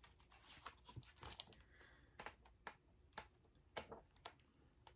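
Faint paper ticks and rustle of book pages being flipped one after another, roughly two a second.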